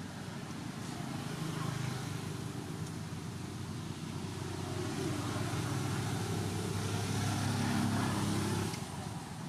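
A motor vehicle's engine running, growing steadily louder and then dropping off sharply near the end, like a vehicle going past.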